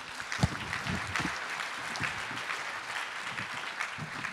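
Audience applauding, a steady clatter of many hands clapping.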